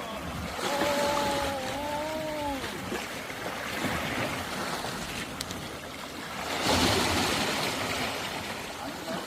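Sea waves washing against the rocks, with a louder surge of surf about two-thirds of the way through. A faint, held, pitched tone sounds over the wash in the first few seconds.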